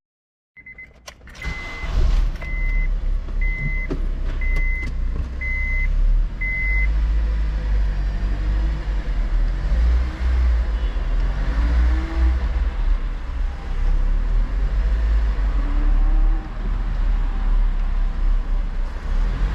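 Acura RSX rolling down a slope in neutral with its engine off: the low rumble of tyres on concrete mixed with wind on the microphone. Over the first seven seconds a car warning chime beeps six times, about once a second. The owner is listening for a weird noise from the rear wheel, which he later describes as metal on metal.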